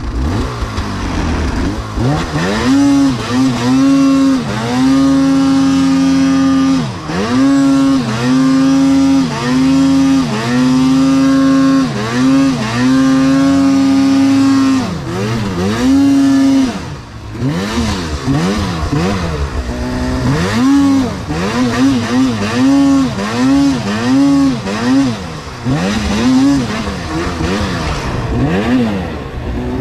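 Two-stroke snowmobile engine revving hard in repeated bursts on and off the throttle. The revs are held high for a second or two at a time in the first half, then change to shorter, quicker rises and falls.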